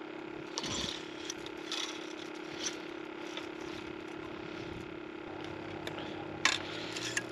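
Light clicks and rattles of a wooden ice-fishing tip-up and its flag wire being handled as the flag is swapped, with a sharper click about six and a half seconds in, over a steady faint hum.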